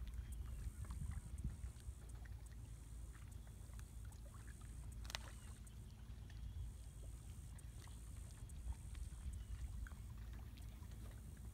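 Outdoor ambience at open bay water: wind rumbling on the microphone, with scattered faint ticks and one sharper click about five seconds in. A faint steady high hiss runs underneath and drops out briefly about six seconds in.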